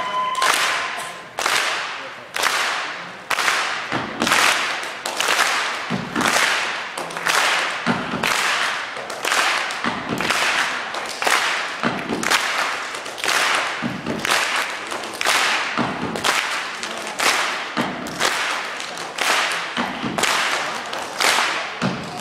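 A steady percussive beat: sharp slap-like hits about twice a second, with a low thud about every two seconds.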